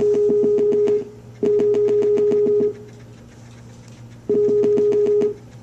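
Skype outgoing-call ringing tone, three ring bursts of about a second each with short pauses between, a steady buzzing tone with a fast flutter. The call is still waiting to be answered.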